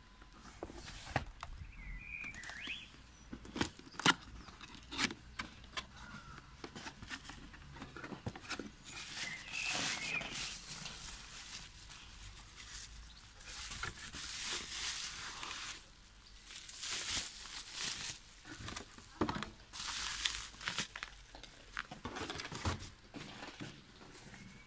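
Cardboard box and bubble wrap being handled, rustling and crinkling irregularly, with scattered sharp crackles.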